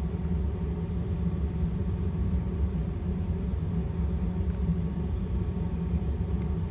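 Steady low background rumble with a faint hum. A couple of faint light clicks come about four and a half and six and a half seconds in, as small pistol parts, the hammer strut and its spring, are handled.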